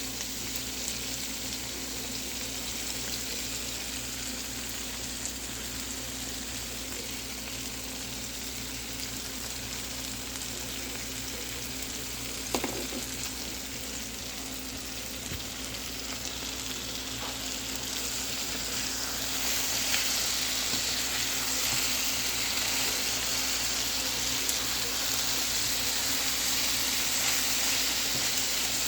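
Sliced apples and onions sizzling steadily as they fry in a pan, with a little sugar just added. A single knock sounds about halfway through, and the sizzle grows louder about two-thirds of the way in.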